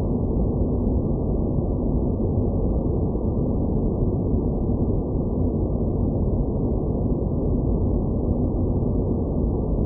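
Space-planet ambience sound effect: a steady, dense low rumble of filtered noise, muffled with nothing in the highs and no distinct events.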